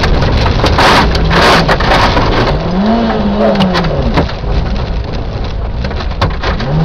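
Peugeot 106 rally car's engine heard from inside the car at speed on a gravel stage, revs climbing, dropping and climbing again with throttle and gear changes. Loose gravel and stones rattle and ping against the car's underside.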